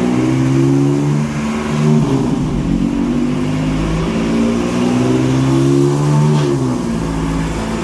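BMW M4's twin-turbo straight-six running on a chassis dyno, its pitch holding steady for stretches and stepping between levels, with a drop in pitch near the end.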